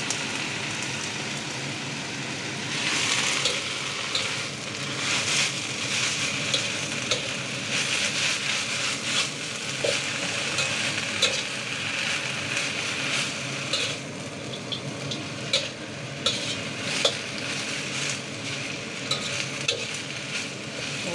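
Native spinach stir-frying in a wok: a steady sizzle, with a metal spatula scraping and clinking against the pan again and again as the greens are tossed.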